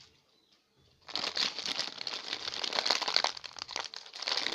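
Plastic wrapping crinkling as it is handled, starting abruptly about a second in after a brief hush and carrying on as dense rustling with small clicks.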